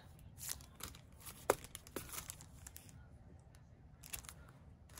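Crinkling of a clear plastic packaging sleeve around a sheet of enamel dots as it is handled and turned over, with scattered soft crackles and one sharper click about a second and a half in.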